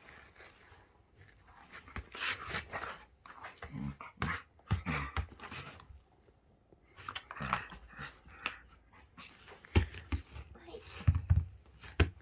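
Shetland sheepdog snorting and sneezing in a series of short, sudden bursts, the loudest near the end. The owner wonders whether the sneezing is hay fever.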